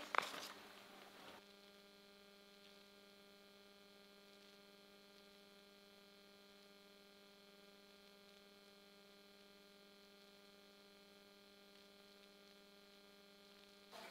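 Near silence with a faint, steady electrical hum and buzz in the audio feed, which sets in about a second in and holds unchanged.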